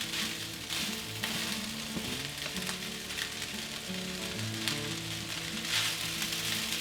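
Rice and vegetables frying in hot oil in a pan, a steady sizzle with a few short scrapes as the rice is stirred.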